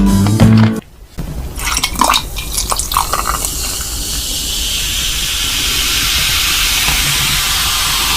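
Music cuts off about a second in, then a few light clicks and knocks, then a steady watery hiss that swells toward the end.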